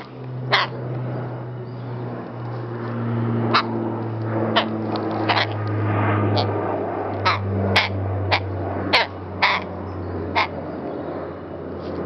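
A rook making short, sharp clicking calls, about a dozen at irregular intervals, over a low steady hum.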